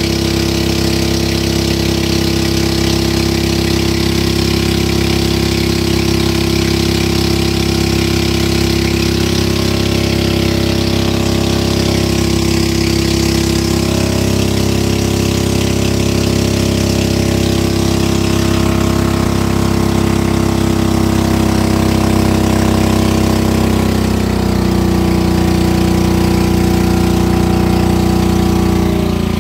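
Small motorboat's engine running steadily, heard close up, with a broad hiss over it; its pitch shifts slightly about halfway through and again near the end.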